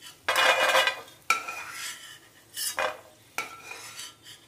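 Steel spoon scraping and knocking against a stainless-steel kadhai in a run of about five short strokes, a couple ringing briefly, as fried almonds are scooped out of the ghee and tipped onto a steel plate.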